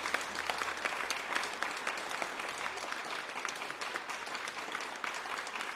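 A group of people applauding, many overlapping hand claps at a steady level.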